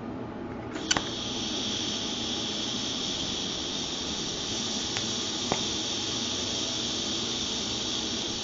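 TIG welding arc: it strikes with a sharp click about a second in, then holds as a steady high hiss, with a couple of faint ticks along the way.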